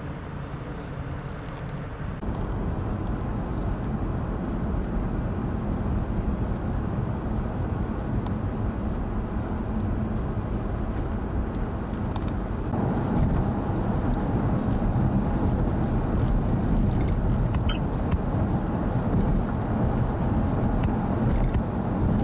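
Steady low rumble of a vehicle driving on a snowy highway: tyre and engine noise heard from inside the cabin. It steps louder about two seconds in and again about thirteen seconds in.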